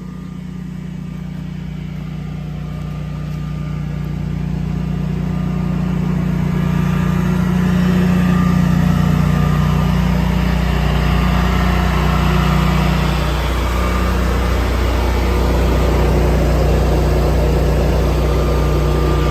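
Generac 24 kW home standby generator's propane-fuelled V-twin engine running steadily, a low, even hum that grows louder over the first several seconds and then holds. It has started on its own to carry the house through a power outage.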